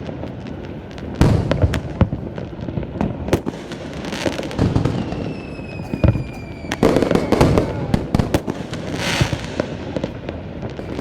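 Fireworks display: repeated bangs of aerial shells with crackling, and a whistling firework tone that falls slowly in pitch about five seconds in.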